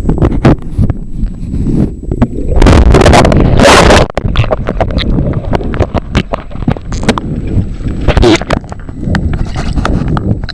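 Underwater water noise: muffled rumbling and sloshing with many sharp knocks and clicks, and a loud rush of bubbles lasting about a second and a half, about three seconds in.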